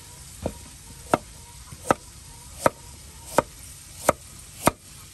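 Large cleaver-style kitchen knife slicing through a raw carrot onto a wooden cutting board: a steady run of about seven sharp chops, roughly one every 0.7 seconds.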